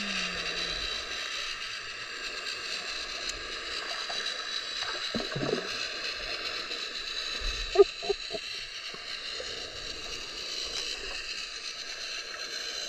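Underwater ambience picked up by a GoPro Hero10 in shallow sea water: a steady hiss and crackle of moving water. There are a few brief knocks, with the loudest pair about eight seconds in.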